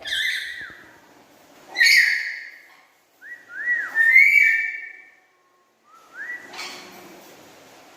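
Black-capped lory whistling and calling in short loud bursts, with a run of rising-and-falling whistled notes in the middle.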